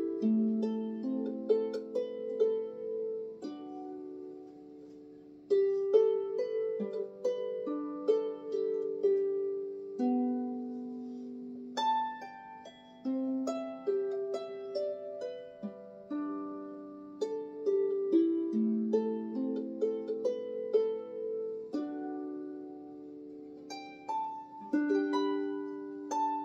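Dusty Strings lever harp played solo: a slow Irish air, its melody plucked over lower notes and chords, the strings left to ring.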